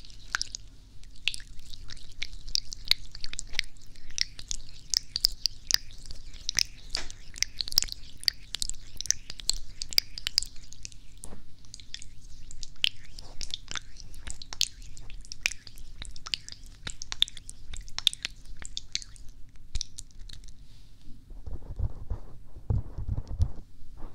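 Gloved hands rubbing and crinkling against the silicone ears of a binaural ASMR microphone: a dense, fine crackling close up. Near the end the crackling stops and gives way to a few dull thumps as the hands cup the ears.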